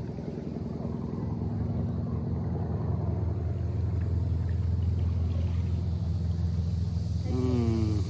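A motorboat engine running with a steady low hum, growing louder over the first few seconds.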